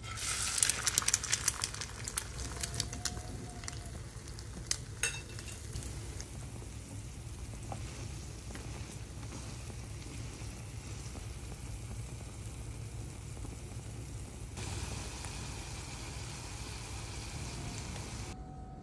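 Egg-soaked bread shallow-frying in hot oil in a pan, sizzling steadily. There is a burst of sharp crackles and pops in the first couple of seconds and a few more pops about five seconds in.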